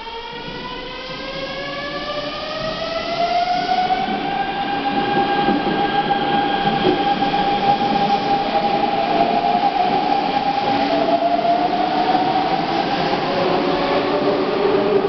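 Hanshin 9000 series electric train pulling away from a station. Its inverter and traction motors whine in several tones that rise in pitch over the first few seconds. One tone then holds steady while the train gathers speed, and another rise comes near the end. Wheel and rail rumble grows louder as the cars pass.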